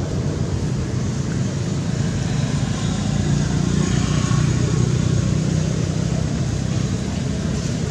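Steady low rumble of background noise with no clear break or change.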